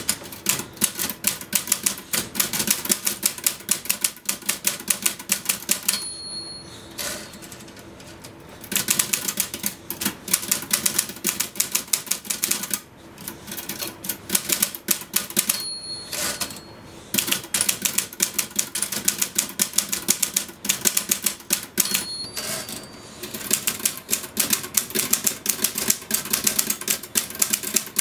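Typewriter keys clattering in fast, frantic bursts of many strokes a second, breaking off now and then. A short bell-like ding about three times, each near a break in the typing, is the line-end margin bell.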